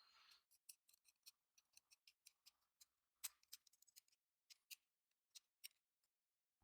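Faint, irregular light clicks, a few a second, with one louder click about three seconds in; they stop shortly before the end.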